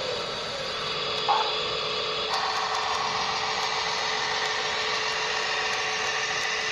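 Small electric motor of a radio-controlled construction model whining steadily, with a brief click about a second in and the whine growing fuller and louder a little later as the load or speed changes.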